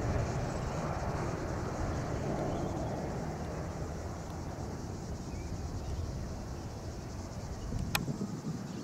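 Jet engine noise of a Boeing 787-9 airliner on final approach to land, heard from a distance as a steady low rumble that slowly fades. A single sharp click comes about eight seconds in.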